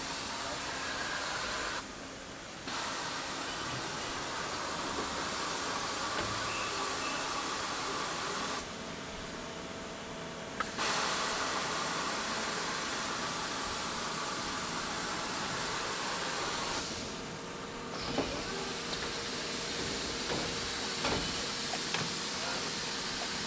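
Steady hissing machine noise of a factory machining floor with an industrial robot at work, with faint steady tones and a few light clicks near the end.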